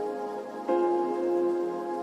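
Background music of long held notes in soft chords, with a new chord coming in a little under a second in.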